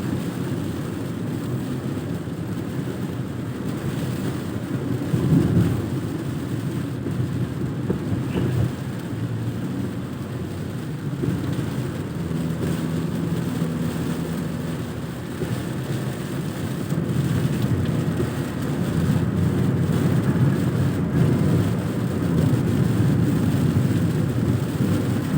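A car driving in heavy rain: steady engine and wet-road tyre noise, with rain falling. The noise swells louder about five seconds in and again in the last third.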